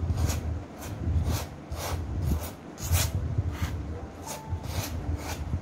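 Metal palette knife scraping thick white paint across a stretched canvas in quick repeated strokes, about two a second.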